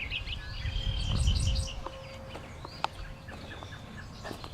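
Outdoor birdsong: songbirds sing repeated short, quick phrases, with a low rumble on the microphone that is strongest about a second in and a single sharp click near the end.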